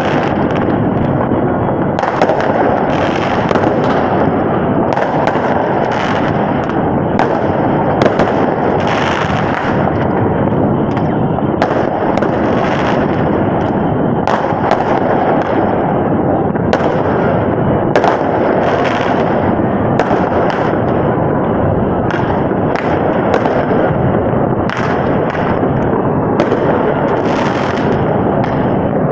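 Many fireworks going off at once: a dense, unbroken din of bangs and crackles, with sharper single bangs standing out about every second.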